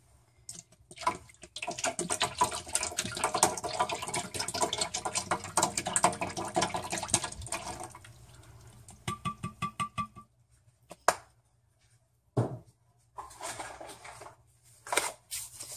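Fish sauce glugging and splashing as a bottle is emptied into a pot of liquid: a dense run of rapid glugs that tails off after about eight seconds. A few separate knocks follow near the end.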